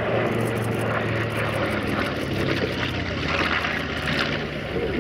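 B-25 Mitchell bomber's twin Wright R-2600 radial engines and propellers droning loudly on a low flyby, the noise swelling as the plane passes about three to four seconds in.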